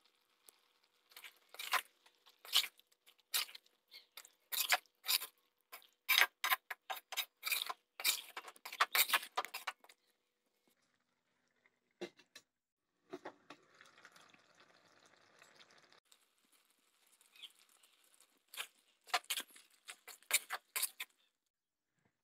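Spoon scraping and knocking against an aluminium kadai as a thick cauliflower curry is stirred: a fast, irregular run of clicks and scrapes for about ten seconds. Then a single clink as the aluminium lid is set on the pan, a few seconds of faint hiss, and another short run of clicks near the end.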